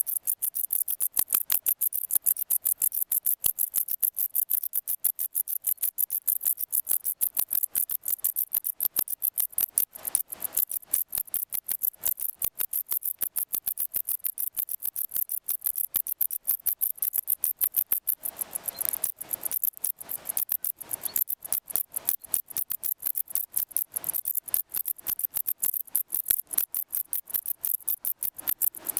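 Wart-biter bush-crickets (Decticus verrucivorus) singing against each other in a song contest between rival males: a steady run of sharp, high-pitched clicks, several a second.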